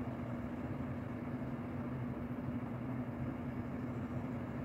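Steady low electrical hum with an even pitch, unchanging throughout.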